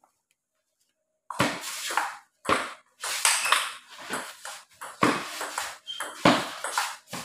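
Table tennis ball being struck by the bats and bouncing on the table in a rally, starting about a second and a half in with the serve and going on in a quick uneven rhythm of sharp knocks, each followed by echo in the room.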